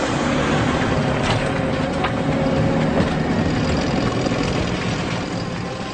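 Motor vehicle engines running steadily as traffic drives past, with a few short sharp knocks about one, two and three seconds in.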